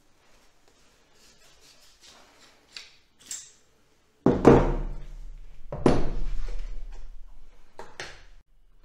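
Light handling noise, then loud metal knocks of tools and brass lance-holder fittings against a table: three of them, about halfway through, a second and a half later, and near the end, each ringing briefly, with a low hum under them.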